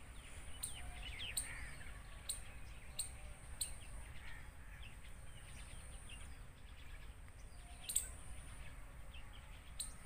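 Faint chirps of small birds scattered through, over a steady thin high-pitched tone, with about six sharp clicks, the loudest about eight seconds in.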